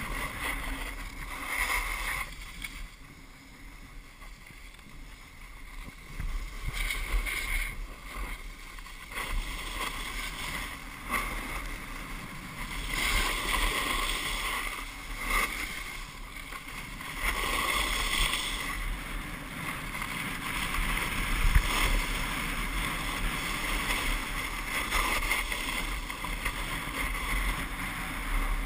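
Wind rushing over the camera microphone and snowboard edges scraping across groomed snow during a fast downhill run, swelling and fading, with a quieter few seconds near the start.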